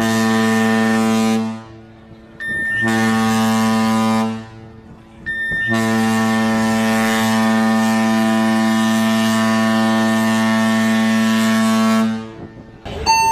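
A cruise ship's deep horn sounding two short blasts and then one long blast, the closing part of the general emergency alarm (seven short blasts and one long) that calls passengers to muster stations. Each blast opens with a brief higher tone.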